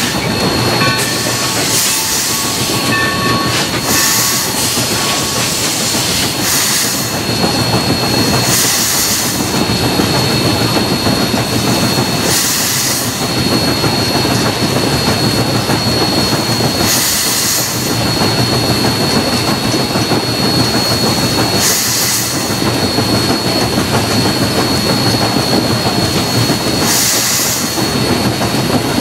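Mikado (2-8-2) steam locomotive rolling along, heard from its cab: a steady clatter of wheels and running gear under a constant thin high hiss, with a louder burst of steam hiss every few seconds.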